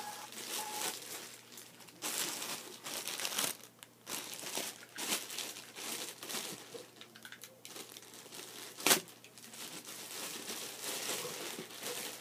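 Clear plastic bag crinkling and rustling as it is handled and pulled apart, with one sharp snap about nine seconds in.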